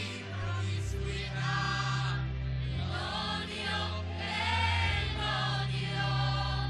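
Choir singing sacred music in long held notes over sustained low bass notes.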